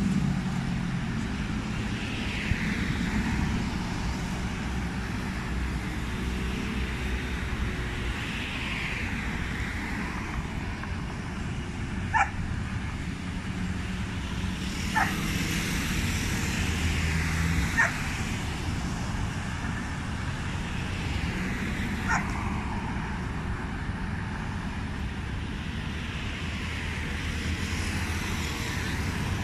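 Steady city road traffic, with cars and motor scooters passing one after another. Four short dog barks come through the traffic between about a third and three quarters of the way through.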